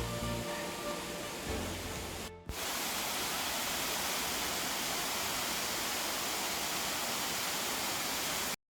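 Background music for about two seconds, then after a short break a steady, even rush of flowing or falling water that cuts off abruptly near the end.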